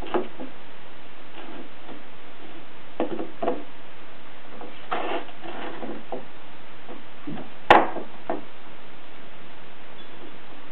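Cat rolling and rubbing against wooden floorboards under the effect of silver vine: a few soft bumps and scuffs, with one sharp knock about eight seconds in, over a steady hiss.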